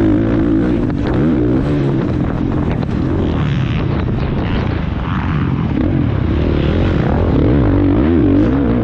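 450 cc four-stroke motocross bike engine being ridden hard, its pitch rising and falling again and again as the throttle is worked through the jumps and turns, heard from a helmet-mounted camera.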